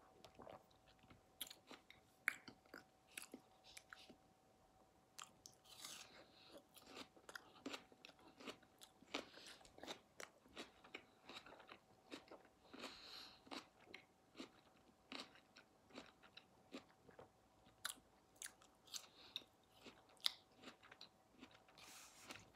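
Quiet, close-up chewing and biting of crunchy food, with many short crunches scattered throughout. A faint steady hum sits underneath.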